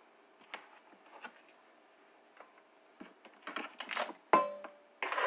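Kitchen prep handling: a few light clicks, then scraping as a cutting board and knife are picked up off the counter, with a sharp clank that rings briefly about four seconds in.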